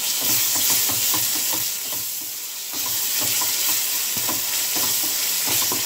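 Ginger-garlic paste and sliced onions sizzling in hot oil in a metal pan, stirred steadily with a wooden spatula that scrapes and taps against the pan. The paste is being fried until its raw smell goes. The sizzle swells up just as the stirring begins.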